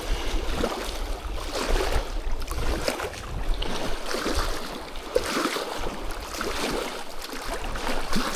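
Water splashing and lapping, with wind rumbling on the microphone.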